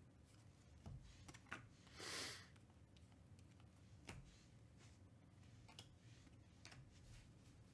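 Faint handling of a stack of glossy trading cards: a few soft clicks as cards are flipped and shuffled through, with one brief swish of cards sliding across each other about two seconds in.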